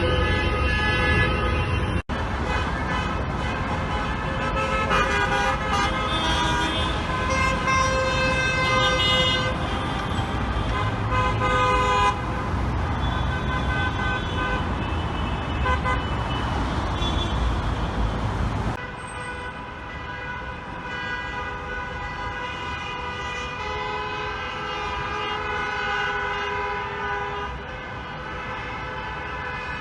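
Many car horns honking together in protest, a dense chorus of long, overlapping tones at different pitches over a low rumble of traffic. The sound changes abruptly about two seconds in and again after about nineteen seconds, when it becomes quieter and the rumble drops away.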